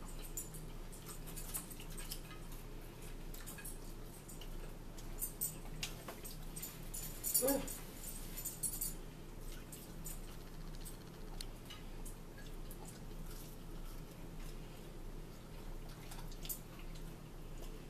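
Quiet eating sounds at a table: faint clicks, rustles and chewing over a steady low hum. About seven and a half seconds in comes one brief squeak that rises in pitch, the loudest sound.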